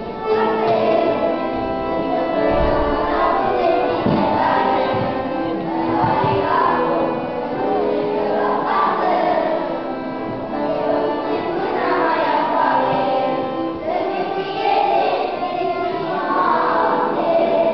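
A group of children singing a song together on stage, with held notes.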